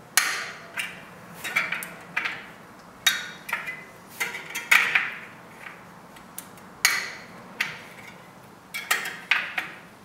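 Sharp metallic clinks and pings, each ringing briefly, from the steel spokes of a bicycle wheel as they are handled by hand during truing. They come irregularly, about one or two a second.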